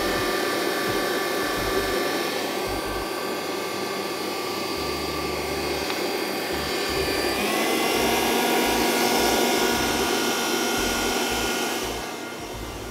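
Electric mixer running steadily, whipping eggs for a fatless sponge cake batter. Its pitch shifts about seven seconds in, and its level drops near the end.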